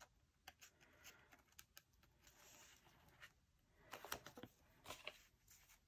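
Faint handling of paper planner stickers: scattered light ticks and soft rustles of the sticker sheet against the planner's pages, a little more busy about four and five seconds in.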